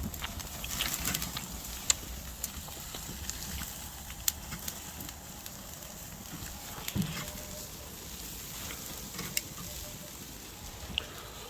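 Oak-log campfire crackling, with scattered sharp pops and snaps over a faint hiss, and a steady low rumble of wind on the microphone.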